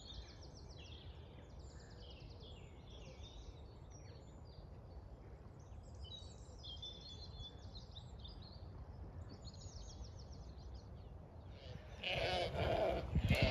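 Faint songbirds trilling and chirping over a low wind rumble. About twelve seconds in, Zwartbles sheep start bleating loudly.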